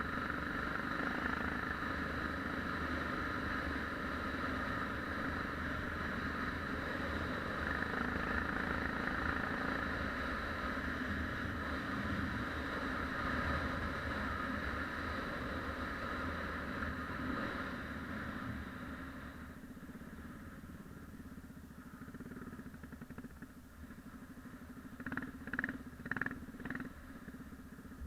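Yamaha XT 600's single-cylinder four-stroke engine running steadily, dropping to a quieter level about two-thirds of the way through, with a few short louder bursts near the end.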